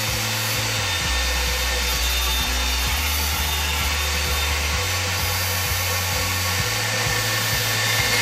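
Electric drill running a dry diamond core bit, grinding steadily into tile with a loud, even hiss.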